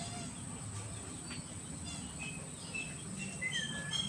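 Steady high-pitched insect buzz with a low hum beneath it. From about two seconds in, short bird chirps and downward-sliding whistles come in and grow more frequent near the end.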